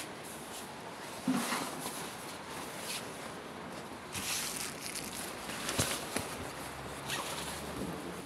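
Plastic sheeting rustling and crinkling as it is handled, in irregular bursts, with a few sharp clicks and knocks.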